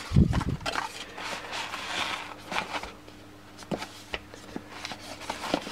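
A cardboard gift box handled by hand: a dull thump just after the start, then soft scrapes, rustles and light taps as the box is picked up and turned over.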